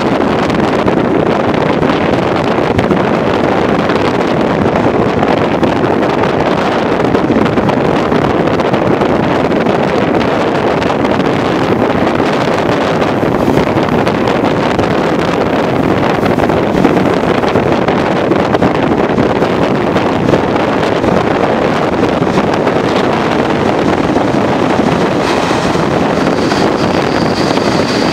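Steady rush of wind and running noise through an open window of a moving train, with wind buffeting the microphone. A faint high whine comes in near the end.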